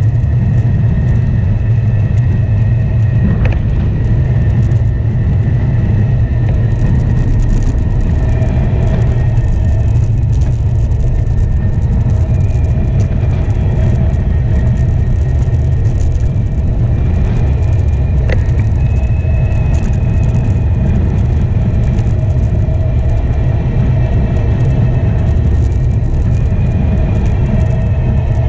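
Wind buffeting the microphone of a handlebar-mounted action camera on a moving road bike: a loud, steady low rumble with the faint whir of the bike's tyres under it.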